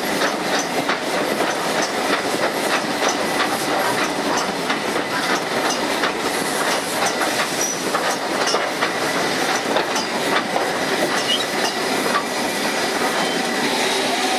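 Slow-moving train's wheels clicking over rail joints, heard from on board the locomotive, with a steady running rumble underneath.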